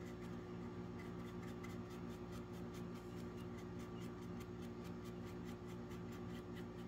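Paintbrush loaded with acrylic craft paint stroking quickly over a plastic HO-scale locomotive shell: a faint, quick brushing scratch repeated several times a second, over a steady low hum.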